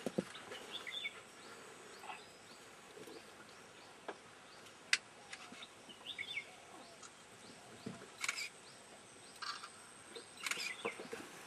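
Quiet forest ambience with small birds chirping now and then and a few sharp clicks, one about five seconds in and a cluster after about eight seconds.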